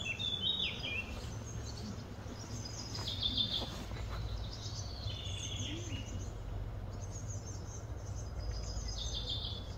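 Wild birds chirping in short high phrases every few seconds over a steady low background rumble.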